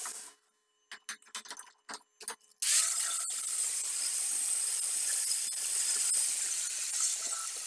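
Angle grinder's abrasive disc grinding the edge of a steel sprocket, starting suddenly about two and a half seconds in and running steadily from there. Before it, near silence broken by a few short clicks.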